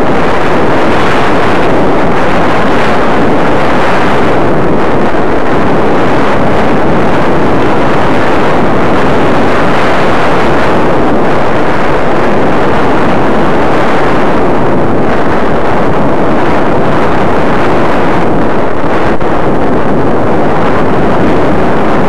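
Wind rushing over the microphone of a camera worn by a skier going downhill, with skis sliding over packed snow: a loud, steady rushing noise that swells and eases a little.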